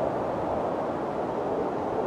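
Steady snowstorm wind, an even rushing noise with no gusts or breaks.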